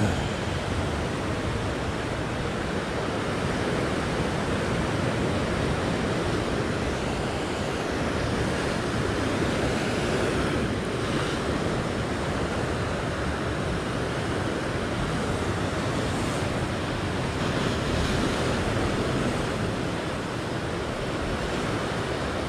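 Ocean surf washing over and breaking against sea rocks: a steady rushing wash of white water.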